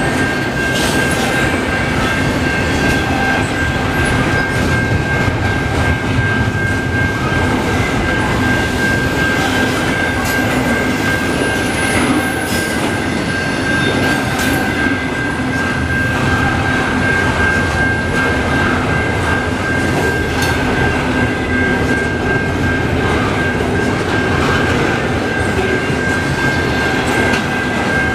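Freight train's double-stack container well cars rolling past close by: a steady rumble of wheels on rail with a continuous high-pitched whine held throughout and a few sharp clicks from wheels crossing rail joints.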